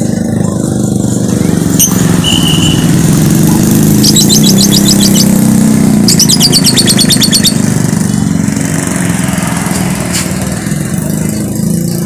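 Motorcycle engines running on the street, with a lovebird's rapid chattering trill in two bursts about four and six seconds in, and a short high whistle a little before them.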